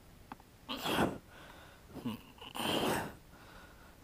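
Two short, forceful exhalations of effort about two seconds apart, as a man strains to work a motorcycle's rear wheel free, with a faint click near the start.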